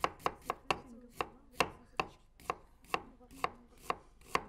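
Kitchen knife chopping an onion on a wooden cutting board: a steady run of sharp taps, closer together in the first second, then about two a second.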